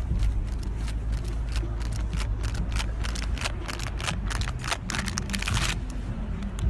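Steady low outdoor rumble with a quick run of clicks and scrapes through the middle.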